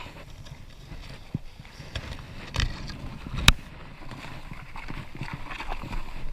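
Footsteps and rustling in forest undergrowth, with scattered crackles and one sharp snap about three and a half seconds in.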